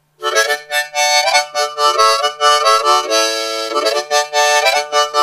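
Harmonica music: a lively tune of quick, chorded notes with one longer held chord about three seconds in.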